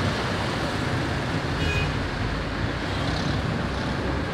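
Road traffic noise: a steady low rumble of passing and running vehicles, with a brief high-pitched tone about a second and a half in.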